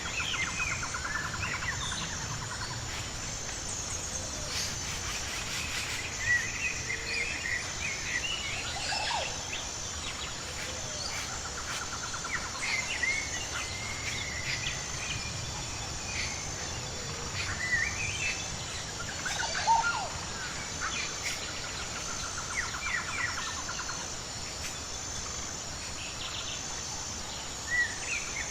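Forest ambience: scattered bird chirps and short trills over a steady, evenly pulsing insect chorus, with a low background hum of natural noise.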